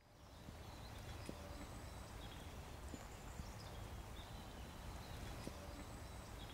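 Quiet outdoor ambience: a steady low rumble with a few faint, short, high bird chirps and an occasional small click.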